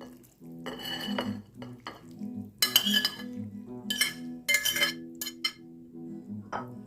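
A serving utensil clinking several times against a pot and bowl as soup is ladled over rice noodles, each clink short and sharp.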